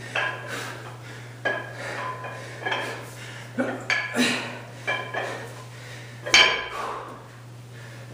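Iron weight plates on a plate-loaded dumbbell clinking against each other at each swing, a ringing metallic clink about once a second, with the loudest clank about six seconds in.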